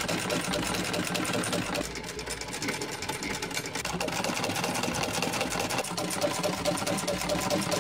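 A 1935 Singer 66K sewing machine running steadily, its needle mechanism making a rapid, even clatter of stitches.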